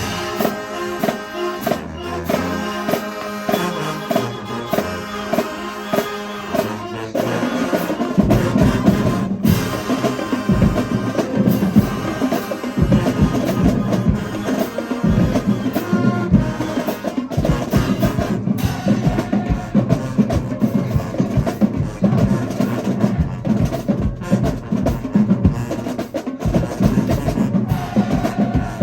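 Marching band playing: the horns hold chords that change in steps, then about seven seconds in heavy bass drum and percussion beats come in under the full band.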